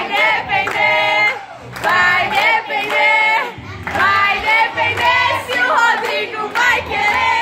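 A group of young voices singing together loudly, with hand claps, in short phrases broken by brief pauses.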